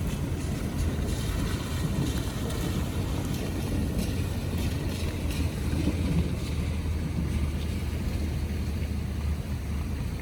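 Heavy rain falling on a cargo van's metal roof in a thunderstorm: a steady low rumble under a hiss, with faint scattered drop hits.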